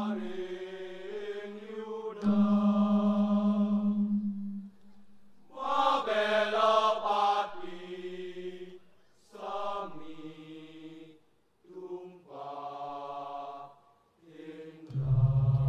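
A solo voice chanting in Balinese, sung in long drawn-out held notes, phrase by phrase with short pauses between them. A lower, louder held note comes in near the end.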